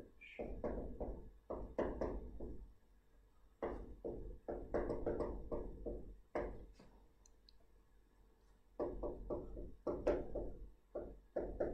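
Handwriting with a pen: runs of light taps and knocks on the writing surface in three spells, with short pauses between.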